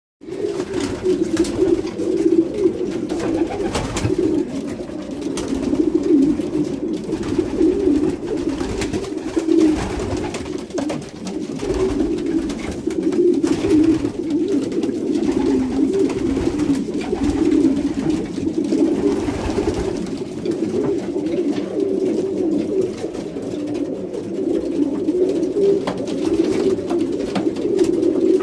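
Many domestic racing pigeons cooing at once, a constant overlapping murmur, with now and then a brief flap of wings. It is the courting cooing of a loft during the pairing season, sounding close and boxed-in inside the small wooden loft.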